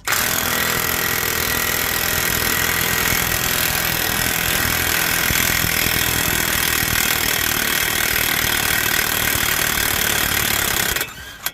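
Electric (battery) impact wrench hammering continuously on the front hub's axle nut, which is too tight to break loose by hand. It starts abruptly and cuts off about eleven seconds in.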